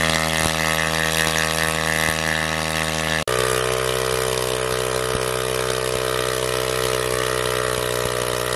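187 cc motorcycle engine running steadily, driving a 3-inch water pump, with its water jet gushing out. The engine note changes abruptly about three seconds in.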